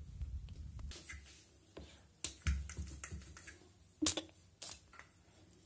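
Wooden rolling pin rolling out a small disc of dough on a marble board, with several sharp knocks of the pin against the stone, the loudest about four seconds in. Before that, a soft rubbing of hands shaping the dough into a ball.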